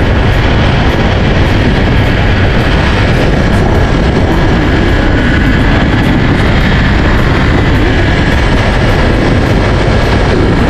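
Loud, steady rush of wind on the microphone mixed with the running noise of a moving vehicle, recorded by a camera riding on it.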